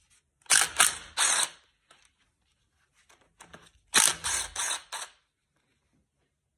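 Cordless impact driver with a socket hammering loose the two connecting-rod cap nuts on a Ford 302 V8: two short bursts of rapid impacts, one about half a second in and one about four seconds in.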